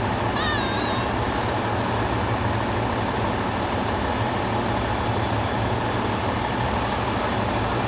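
Fire engines idling, a steady low rumble. A brief high wavering sound cuts in about half a second in.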